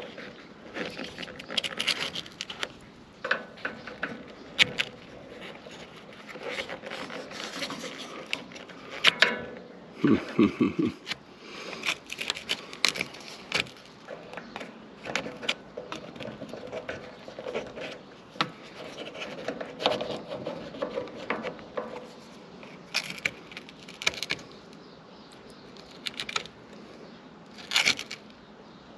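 Irregular scraping, clicks and small knocks of hand work at the rubber seal of a car's rear window frame, as the seal is pried up and wedges are pushed under it. A brief low sound comes about ten seconds in.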